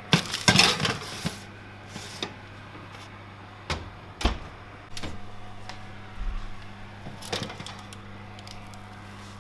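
Metal baking tray sliding onto an oven rack with a scraping clatter, then knocks and the oven door shut with a clunk about four seconds in. A few more knocks of metal on the rack come near the end.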